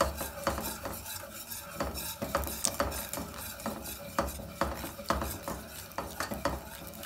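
Wire whisk beating thickening custard in a metal saucepan: quick, uneven strokes, the wires clicking and scraping against the pan several times a second.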